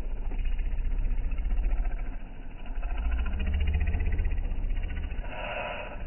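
Wind buffeting the microphone in gusts: a deep rumble that swells and fades every second or two, over a steady hiss. A brief louder rush comes near the end.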